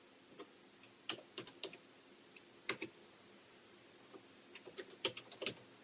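Faint typing on a computer keyboard: short key clicks in uneven groups, a few about a second in, a pair near three seconds, and a quicker run near the end.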